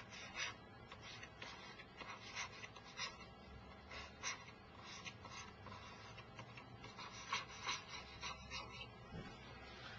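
Pen DUO digital pen writing by hand on a laptop screen: irregular short scratches and taps of the pen tip on the display as the letters are traced.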